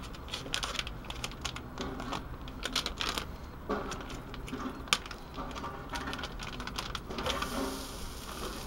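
Plastic ready-rice pouch crinkling and being torn open, a scatter of small crackly rustles and clicks. About seven seconds in, a hiss rises as the rice goes into the hot frying pan and starts to sizzle.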